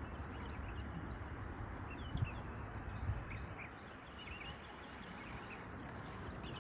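Faint, scattered bird chirps over a low steady outdoor rumble, with two soft low knocks about two and three seconds in.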